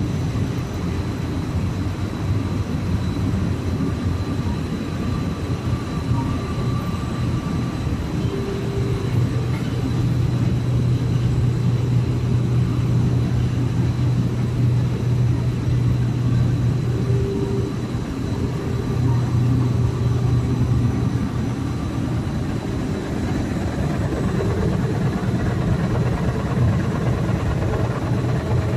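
Needle-punched nonwoven fabric production line running: a loud, steady machine drone with a strong low hum that swells through the middle and eases again, plus a faint constant high tone.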